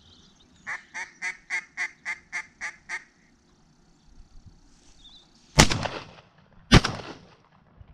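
A run of about nine quick duck quacks, roughly four a second, then two shotgun shots a little over a second apart, each trailing off briefly.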